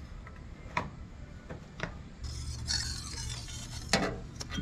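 Stainless hose clamps and a silicone coupler being fitted by hand onto polished aluminium intercooler piping: a few sharp metallic clicks and taps, with a stretch of rubbing, rustling handling noise in the middle.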